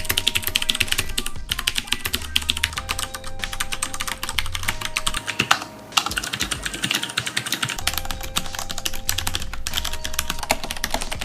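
Fast typing on mechanical keyboards: a run of sound tests of different Cherry MX switch types played one after another, a dense patter of key clicks with a few short breaks. Faint background music underneath.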